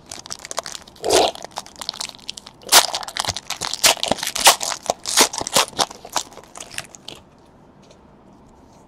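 Foil trading-card pack wrapper crinkling and crackling as it is torn open and handled, in quick, irregular bursts that stop about seven seconds in.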